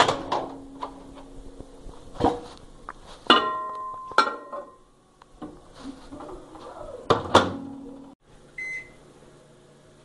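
Knocks and clatter of a glass bowl set on a microwave oven's turntable, the glass ringing briefly after one knock, then the microwave door shut with a loud knock. Near the end, a single short beep from the keypad.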